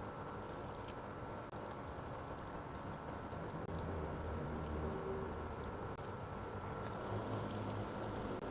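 Wet chicken noodles (mie ayam) being stirred in a bowl, with light scattered clicks of the utensil, over a faint steady background whine.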